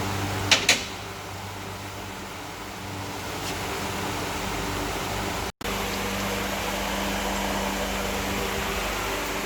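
Steady, fan-like mechanical hum with two sharp clicks about half a second in; the sound cuts out for an instant a little past halfway.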